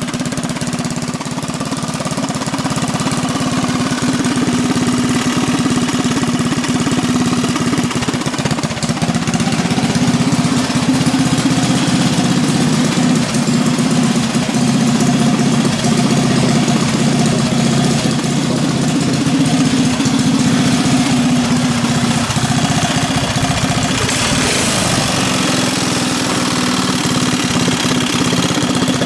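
Briggs & Stratton 5 hp single-cylinder flathead go-kart engine running steadily through an open header pipe on its first test run after a rebuild.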